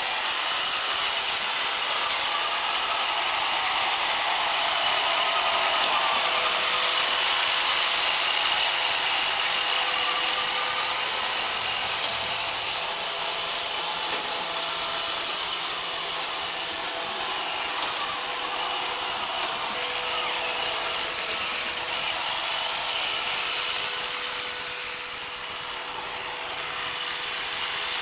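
iRobot Roomba robot vacuum running: a steady whir of its vacuum motor and spinning brushes with a constant high whine, growing a little louder and softer as it moves about.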